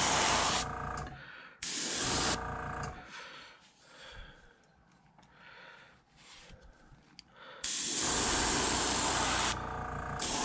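Airbrush spraying black paint onto a lure in short hissing bursts, then a pause of a few seconds with faint handling clicks, then a longer steady spray beginning near the end.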